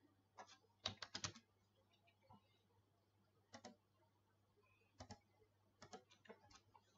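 Clicks of a computer mouse and keyboard: a quick run of about four clicks about a second in, then single clicks and pairs spread through the rest.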